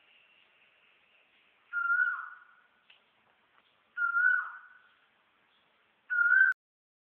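A bird calling: three clear whistled notes of the same pitch, each dipping at the end, about two seconds apart, the last one cut off short.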